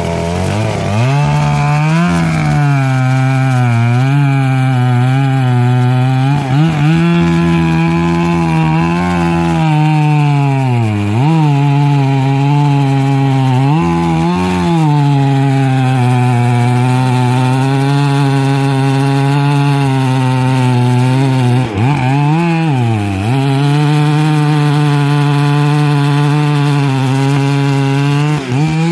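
Long-bar chainsaw cutting into the base of a large old-growth fir, its engine held at high revs under load. The engine note dips briefly and climbs back several times as the chain bites into the wood, most sharply twice near the middle and once about three-quarters through.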